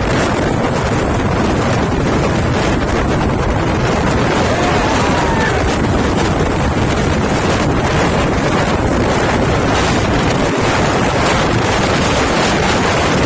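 Loud, steady wind buffeting the microphone, over the rumble of a moving truck.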